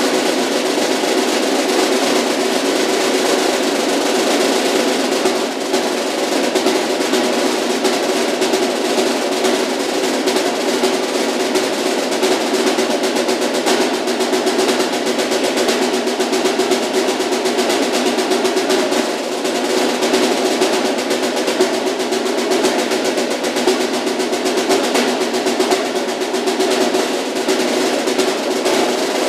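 Solo snare drum played with sticks in fast, continuous rolls and rapid strokes, the sticks never pausing for long.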